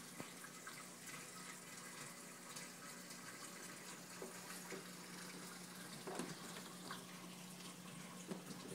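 Faint running and trickling of water circulating through a reef aquarium, with small splashes scattered throughout over a steady low hum.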